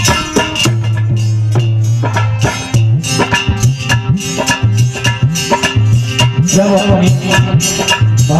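Harmonium playing a melody over steady held reed notes, with a hand drum, tabla-like, beating a quick, even rhythm alongside.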